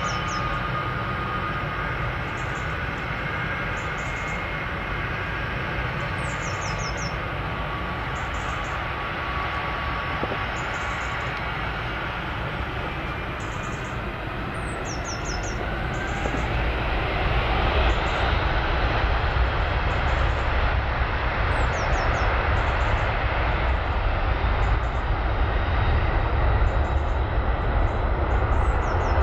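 Boeing C-17 Globemaster III's four Pratt & Whitney F117 turbofan engines running. Their whine rises in pitch and the sound grows louder and deeper about sixteen seconds in as they spool up to takeoff power for the takeoff roll.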